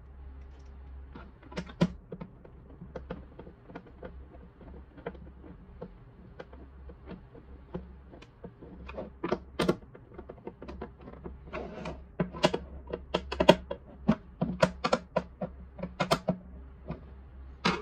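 Screwdriver turning screws into the plastic bottom cover of a humidifier: irregular small clicks and taps, sparse at first and coming thicker and louder in the second half, over a faint low steady hum.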